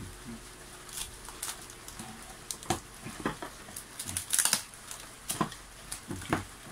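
Irregular rustling, crinkling and light knocks as a taped-up plastic motorcycle taillight, with a paper card and clear plastic sheet pressed over it, is handled and shifted on a wooden table. The busiest burst of handling comes about four and a half seconds in.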